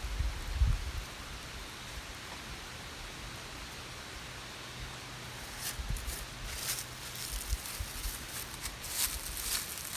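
Campfire with a skillet of biscuits cooking in butter on it: a steady hiss, with sharp crackles coming thick from about halfway in. A few low bumps in the first second.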